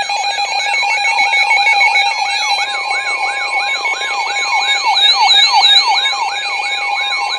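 Electronic siren-like alert: a rising whoop repeating about three times a second over steady high beeping tones. About halfway in, a steady single tone joins it, matching NOAA Weather Radio's 1050 Hz warning alarm tone. Near the end the whooping cuts off and the steady tone carries on alone.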